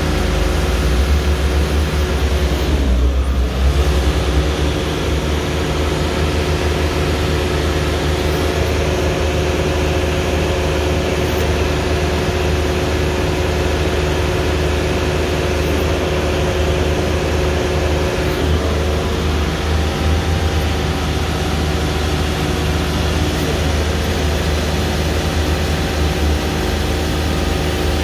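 Sandvik DD320 jumbo drill rig's engine and hydraulic power pack running steadily while the booms are moved on the control levers; the pitch briefly sags and recovers about three seconds in.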